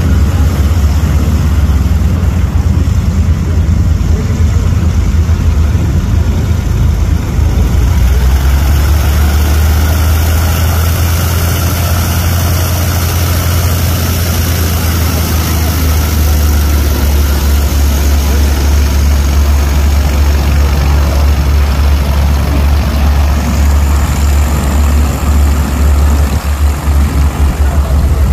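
Small vintage single-engine propeller plane taxiing past, its piston engine running at a low idle as a steady, loud low drone, with a hiss that grows stronger about a third of the way in as the plane comes closer.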